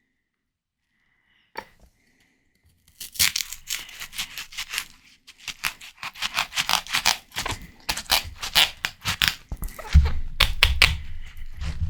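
Biting and chewing juicy watermelon close to the microphone: after a near-silent start and a single click, dense wet crunching begins about three seconds in, with low thumps joining near the end.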